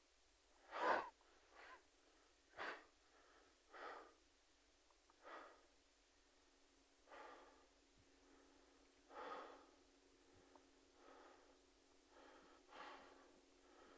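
A young man's sharp gasp about a second in, then a string of faint, uneven, heavy breaths every second or two: the distressed breathing of someone made to look at a dead body.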